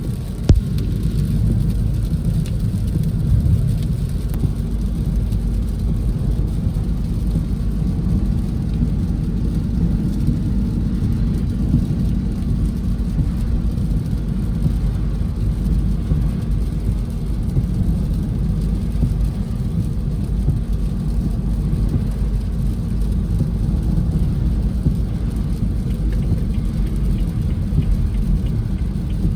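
Steady low rumble of a vehicle on the move in heavy rain, with a single sharp knock about half a second in.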